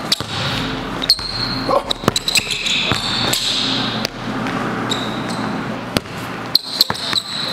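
Basketball dribbled hard on a hardwood gym floor in quick, irregular bounces, with a few short high squeaks from sneakers on the court.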